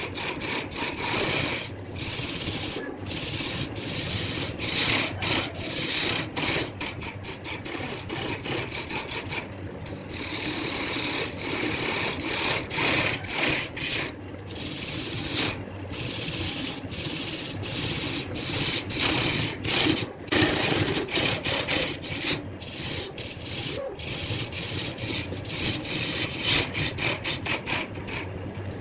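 Wood lathe turning a wooden blank while a turning tool cuts into it: continuous rasping and scraping, broken by many short gaps, over the lathe's steady low hum.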